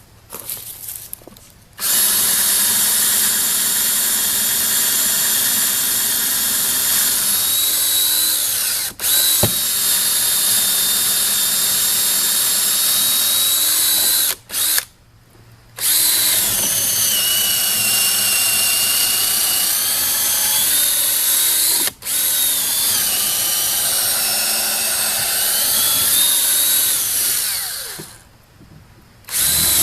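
DeWalt cordless drill with a long extension bit boring through a thick wooden door frame. It runs in long stretches with its pitch shifting under load, and stops briefly three times between runs.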